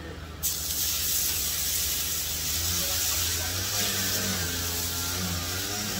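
Eye of round roast sizzling on a very hot, oiled flat-top griddle as it starts to sear. The sizzle starts abruptly about half a second in, when the meat goes down, and then runs steady.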